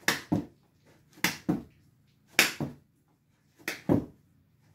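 Clap push-ups on carpet: four repetitions, about one every 1.2 s. Each is a sharp hand clap followed a quarter second later by a duller thud as the hands land back on the carpeted floor.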